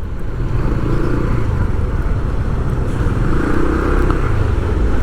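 Steady motor vehicle noise while moving: a continuous low rumble with hiss, without breaks or sudden events.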